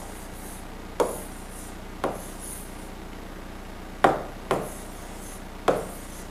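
A stylus tapping and scratching on the glass of an interactive display as numbers and letters are written: about five sharp taps at uneven intervals, a few followed by a faint scratchy stroke, over a faint steady hum.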